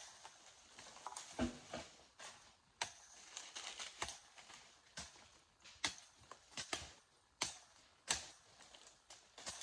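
Machete strokes chopping through brush and undergrowth: about a dozen sharp chops at uneven intervals, roughly one a second, with rustling of leaves and branches between.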